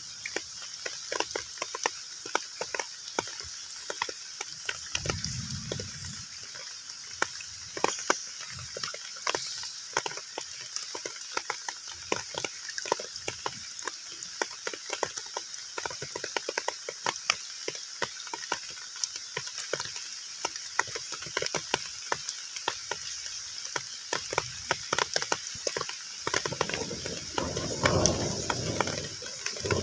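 Heavy rain falling on a pond's water surface: a steady hiss with many distinct drop splashes. A low rumble swells briefly about five seconds in and again in the last few seconds.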